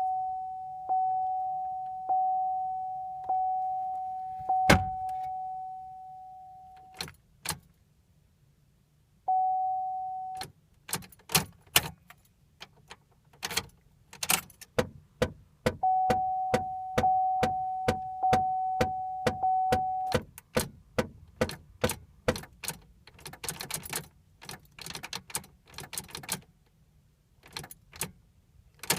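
2007 Pontiac G5's warning chime dinging about once a second, in stretches. Through the second half come many sharp clicks and key rattles as the ignition is tried, with no cranking and no engine start: a no-crank condition.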